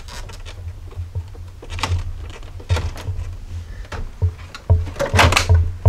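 Plastic steering-column trim on a Jeep Cherokee XJ clicking and knocking as the shroud is worked loose around the tilt-steering lever, with a quick cluster of clatters about five seconds in.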